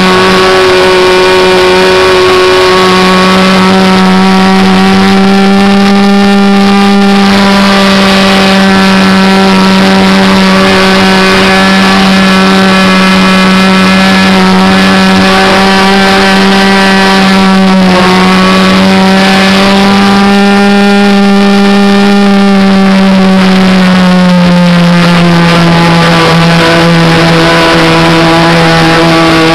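Engine of a radio-controlled model Cessna Skylane 40 running steadily in flight, heard up close from a camera mounted under the wing, a loud high-pitched drone over rushing air. The pitch wavers slightly and drops a little about three-quarters of the way through.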